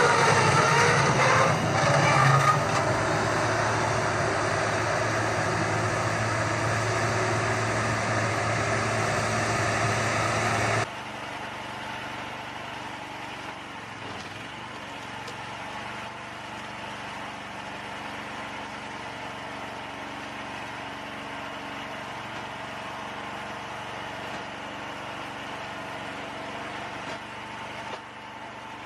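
An engine running steadily, louder for the first ten seconds or so, then cutting suddenly to a quieter, steady engine hum.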